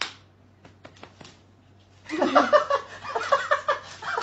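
A few faint taps, then about two seconds in a person laughing in repeated bursts.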